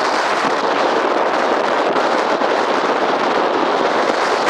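Strong wind buffeting the microphone: a loud, steady, rough rushing noise with a crackling edge.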